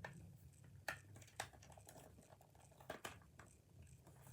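Faint, scattered clicks and taps of plastic game-controller parts being handled and fitted back into the shell, about four sharp clicks over a low steady hum.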